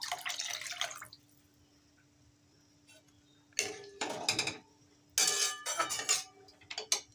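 Water poured from a glass jug splashing into a metal kadai, lasting about a second. Then a metal spatula stirs and clinks through the broth in the pan in three short spells.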